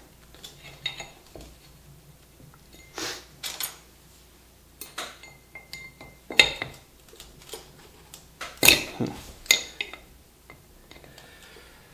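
Metal wheel spokes clinking and tapping as they are threaded through the flange holes of a dirt-bike wheel hub during wheel lacing: irregular sharp clinks, with a few louder ones in the second half.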